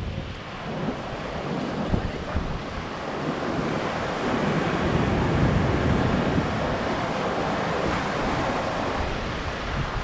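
Ocean surf breaking and washing up a sandy beach, swelling about halfway through as a wave comes in. Wind rumbles on the microphone.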